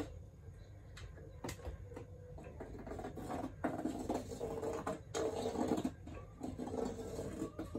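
Pencil scratching along the wall as a line is drawn against a spirit level, in irregular strokes with a few small knocks of the level against the wall.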